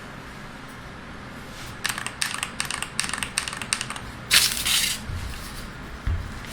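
Keystrokes on a Hall Effect keyboard: after a quiet start, about two seconds of rapid clicking typing, then a louder half-second rushing, rubbing burst and a short low thump near the end.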